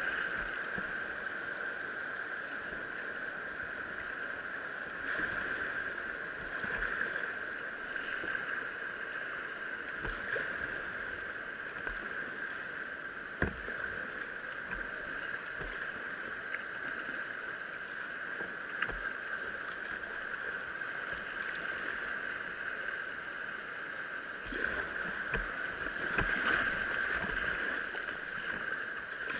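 River rapids rushing and splashing against a kayak's hull and deck: a steady wash of whitewater that gets louder near the end as the boat runs through rougher water. A single sharp knock comes about midway.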